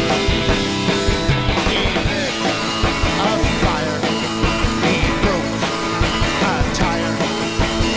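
Rock band playing live, with drums and electric guitar over a steady beat.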